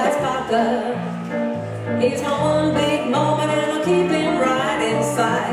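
Live blues played on a hollow-body electric guitar and a stage keyboard, with a steady moving bass line.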